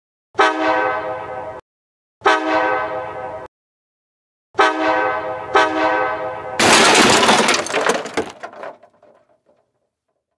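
Dubbed train horn sound effect blowing three blasts, the last one longest. About six and a half seconds in comes a loud crash effect of smashing and breaking that dies away over about two seconds, standing for a train hitting a vehicle.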